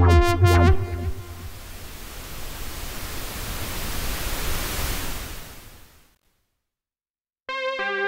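Mercury-6 software synthesizer, an emulation of the Roland Jupiter-6, playing a preset. A pulsing pitched sequence with heavy bass ends about a second in. A rushing noise sweep then grows brighter over several seconds and fades out. After a short silence, a new preset's sustained chord enters near the end.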